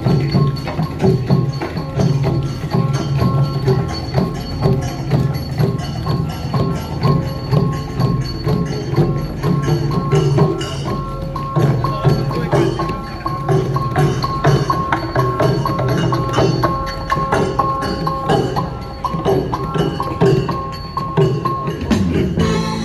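Music with a quick, steady percussive beat over sustained bell-like tones, shifting to a different passage near the end.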